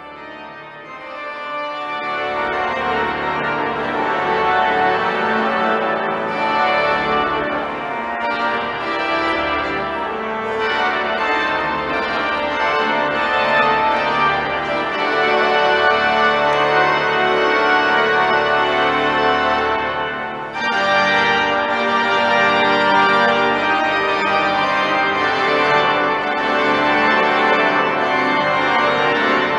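Freiburg Minster's pipe organ playing in a recital: full, sustained many-note chords. It swells in over the first two seconds, dips briefly about two-thirds of the way through, then carries on.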